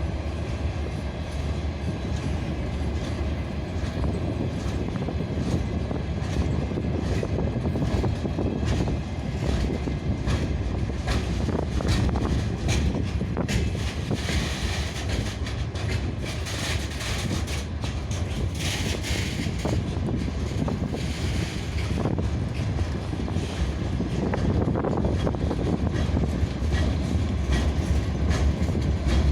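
Freight train rolling slowly past, its wheels clicking unevenly over the rail joints over a continuous rumble, with a brighter hiss coming in twice around the middle.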